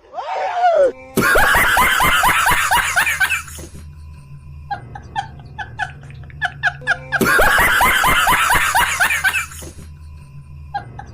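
Background music with a steady bass and a repeating plucked pattern. Two loud bursts of laughter come over it, about a second in and about seven seconds in.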